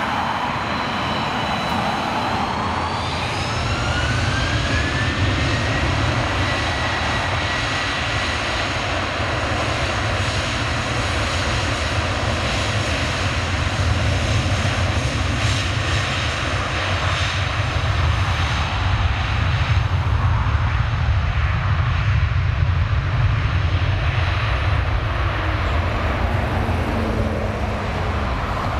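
Airbus A330 jet engines spooling up to takeoff power: a rising whine in the first few seconds, then a loud, steady low roar as the airliner rolls down the runway.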